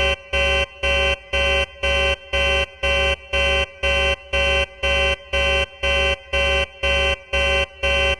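Ship alert alarm sound effect, a deep, buzzy synthesized tone pulsing on and off about twice a second, like a naval or spaceship red-alert warning.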